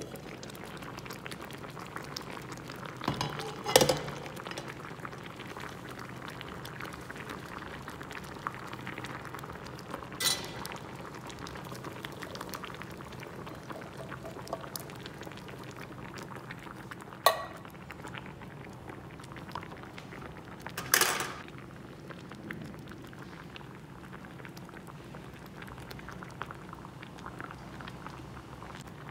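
A pot of curry bubbling at a simmer. Four sharp clanks of metal and glass against the pot break through it, about four, ten, seventeen and twenty-one seconds in, as the lid comes off and ingredients and a spoon go in.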